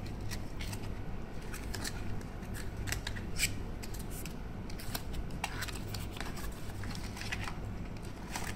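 Small cardboard box being opened and its contents unwrapped by hand: scattered sharp clicks and rustles of card and paper.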